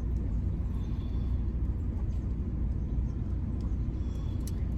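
Steady low rumble inside a car's cabin, with a few faint clicks and taps.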